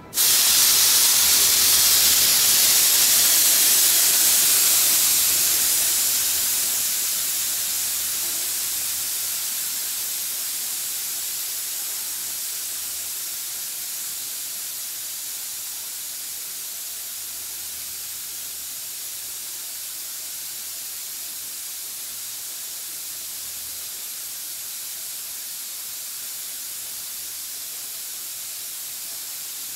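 Compressed air hissing out of a blow gun fitted to the charged tank of a two-head, belt-driven air compressor, released at about 9 bar. The hiss starts suddenly and loud, weakens slowly over the first fifteen seconds or so as the tank pressure falls, then runs on steady and quieter.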